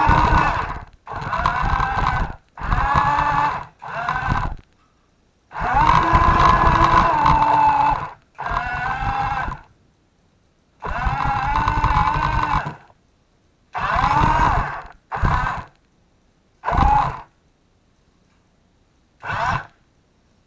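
RC toy truck's motor and gearbox whining in short throttle bursts of one to two and a half seconds with silence between, the whine rising as the truck speeds up and falling as it slows, over a low rumble of the wheels on the floor. Near the end the bursts become shorter and further apart.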